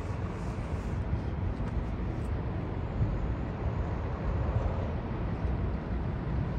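Medium-duty truck's diesel engine running as it drives slowly toward the listener, a steady low engine sound.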